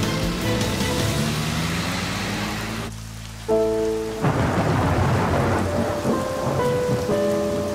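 Heavy rain pouring down, with a clap and rumble of thunder about halfway through, under sustained notes of a background music score.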